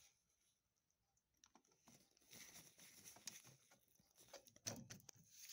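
Faint handling noises around a plastic four-prong dryer receptacle: scattered light clicks, taps and scrapes as a screwdriver is worked at its terminal screws, starting about a second and a half in, with the loudest knock near the end.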